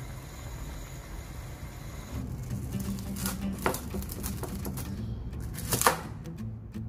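Braising liquid bubbling in a pan around a whole chicken, a steady sizzle. About two seconds in it gives way to a kitchen knife cutting through lemongrass stalks on a cutting board: a handful of sharp cuts, the loudest two close together near the end.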